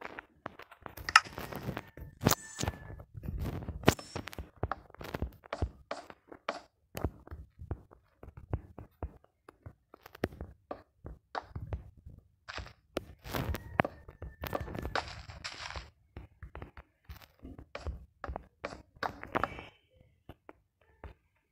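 Irregular knocks, taps and scrapes of wooden pieces being handled and worked by hand, with a couple of brief ringing clicks.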